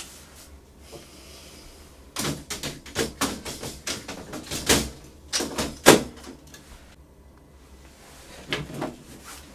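Hard plastic clicks and knocks as packing pieces are pulled out of a laser printer's open drum bay. The knocks come in a quick run over a few seconds, the loudest about six seconds in, with two more near the end.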